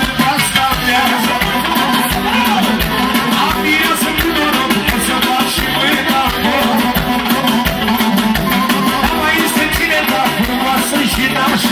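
Loud live amplified band music with a man singing into a microphone over a steady, fast beat.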